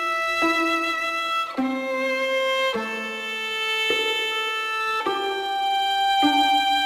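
Background music: a slow melody of long held notes, moving to a new pitch about once a second.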